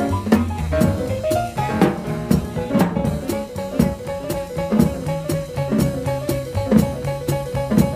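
Jazz piano trio playing: piano over upright bass and drum kit, with a steady cymbal beat and a moving bass line.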